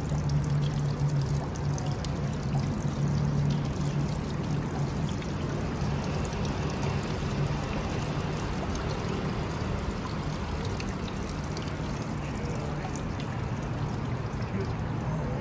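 Water running steadily, with a low hum underneath that is loudest in the first few seconds.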